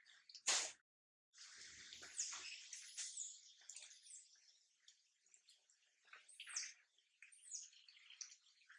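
Faint high-pitched chirps and squeaks, a few short rising-and-falling calls, over a soft hiss. A sharp click comes about half a second in.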